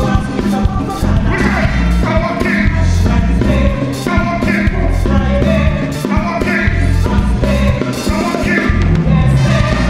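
Live soca band music with a steady drum beat and horns, a male lead singer singing over it.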